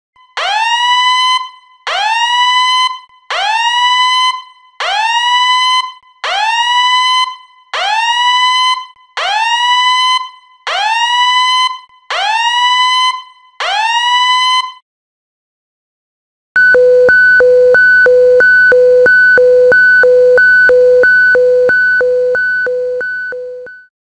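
Submarine fire alarm: a loud electronic whoop rising in pitch, repeated about ten times. After a short pause, a second electronic alarm starts, alternating a low and a high beep about twice a second, and fades out near the end.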